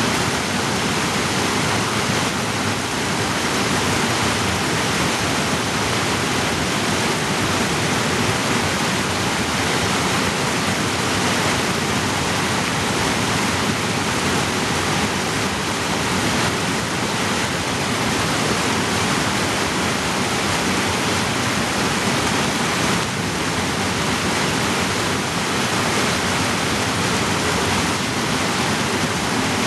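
Steep rocky creek rushing and splashing down over boulders in a run of small cascades, a steady, unbroken rush of white water.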